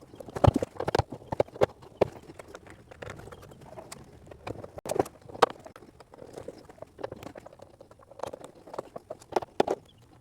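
Irregular clicks and knocks of hardware being fitted by hand as a deer feeder is bolted together: bolts, lock washers and wing nuts going in and being snugged down one after another, in small clusters with pauses between.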